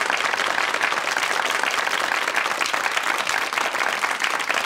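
Studio audience applauding, a steady dense patter of many hands clapping.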